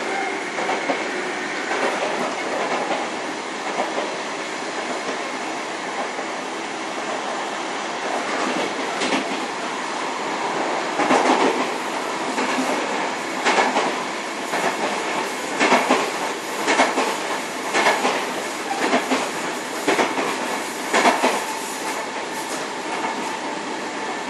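Running noise inside a Sotetsu 7000 series electric train car with right-angle cardan drive. Through the middle and later part the wheels clack over rail joints about once a second.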